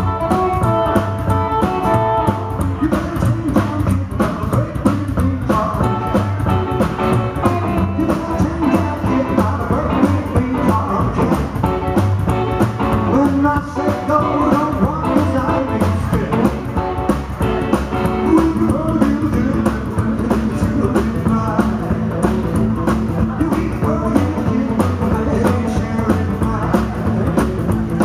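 Live rockabilly band playing with a steady beat: electric and acoustic guitars over upright double bass and a drum kit.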